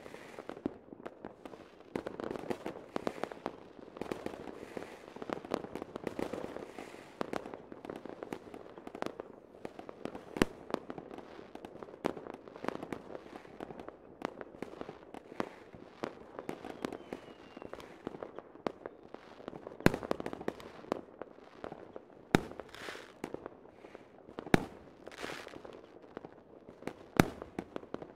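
New Year's Eve fireworks and firecrackers going off all around: a dense, unbroken run of rapid pops and bangs, with a few single sharp bangs standing out much louder in the second half.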